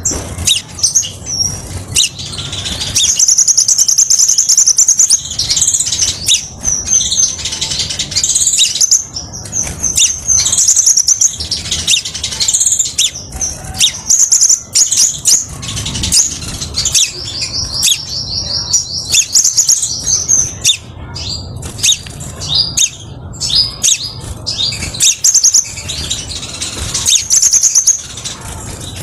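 Crimson sunbird singing: rapid, high-pitched trilling runs lasting a second or several, broken by sharp chips and short pauses.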